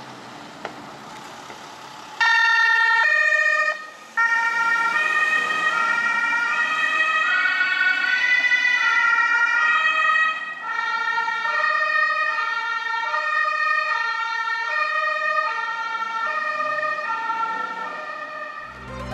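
Ambulance emergency horn played as a short tune: a melody of changing notes instead of the usual two-tone alternation. It starts about two seconds in, breaks off briefly near four seconds, then carries on and grows fainter toward the end as the vehicle drives away.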